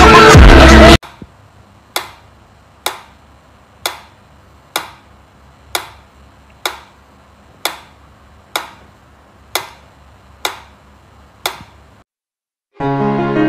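Mechanical pendulum metronome ticking steadily, about one tick a second, with sharp clicks. Music plays in the first second and starts again near the end.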